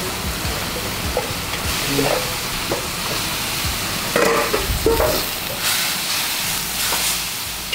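Food sizzling in a hot pan while it is stirred with a utensil. There are a couple of louder knocks about four and five seconds in.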